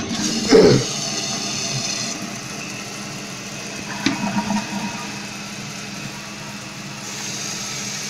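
1995 Mansfield Alto toilet flushing: water rushes out of the tank through the Mansfield flush valve while the fill valve hisses as it starts to refill. The rush eases after about two seconds and settles into a steady refill hiss.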